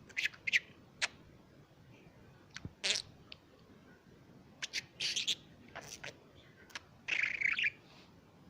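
Pet bird mimicking a person's snoring: short hissy bursts and clicks, the longest about seven seconds in.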